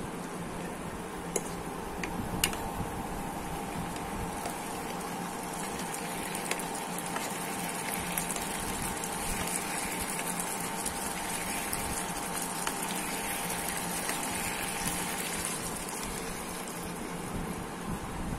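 Thick curry sizzling and bubbling in a nonstick wok on an induction cooktop while a steel spoon stirs it, with a few sharp clicks of the spoon against the pan in the first few seconds. A steady faint hum runs underneath.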